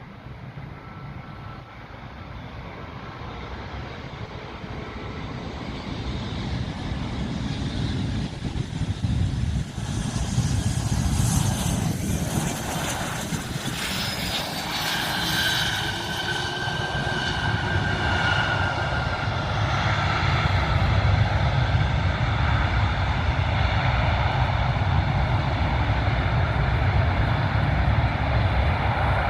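Airplane engines growing steadily louder as the aircraft comes close. About halfway a high whine falls in pitch as it passes, and the sound then stays loud as a steady low rumble.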